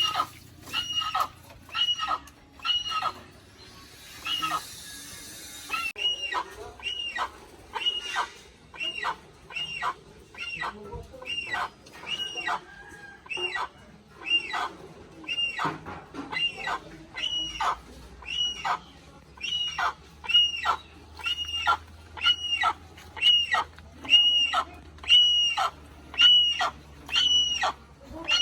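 Hornbill calling in a long, even series of short, high calls, about three every two seconds, each dropping in pitch at its end. A brief hiss runs between the calls about four seconds in.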